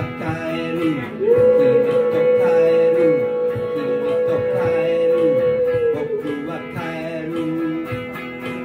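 A man singing a rock song to his own electric guitar, holding one long note for about four seconds from about a second in, over the guitar's chords.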